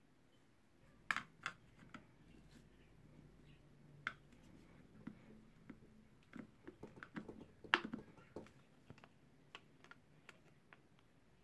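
Faint irregular clicks, taps and scrapes of a thin metal tool and fingers on the plastic lid of a car battery as its built-in charge indicator (hydrometer eye) is worked loose and pulled out, with the sharpest clicks about a second in and near the end.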